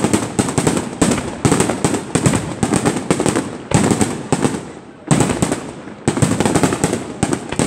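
Aerial fireworks shells bursting one after another, a fresh volley of sharp bangs about every second, each fading out before the next.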